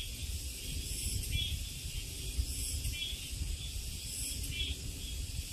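Summer forest insect chorus: a steady high buzz that swells and fades in pulses, with a short chirp repeating about every second and a half. A low rumble runs underneath.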